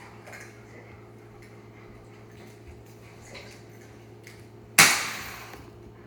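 A bunch of keys dropped onto a hard floor: one sharp clatter near the end that dies away in under a second.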